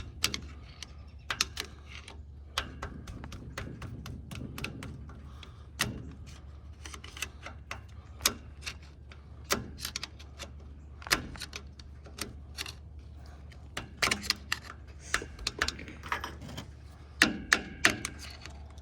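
Hand tools clicking and tapping against the metal of a truck's wheel hub in irregular sharp knocks, with a few louder knocks near the end. The tools are being worked at a stuck bearing and nut.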